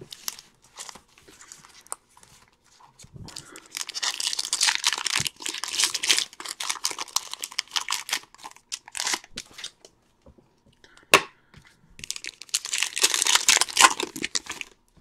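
Baseball card pack wrappers being torn open and crinkled by hand in two long stretches of crackly rustling, with a single sharp click between them.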